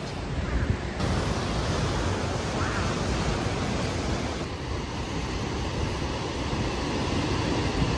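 Surf washing on a rocky shore with wind buffeting the microphone: a steady rushing noise with gusty low rumble, shifting abruptly twice.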